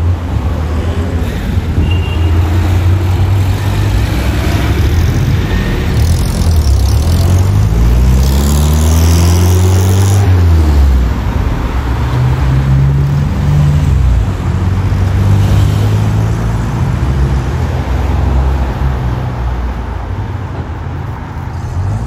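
Cars driving past on a street, old Soviet Ladas and a military jeep among them, with engine hum and road noise. A white Lada saloon passes close at the start. About eight to eleven seconds in, one engine's note rises and then falls as it goes by.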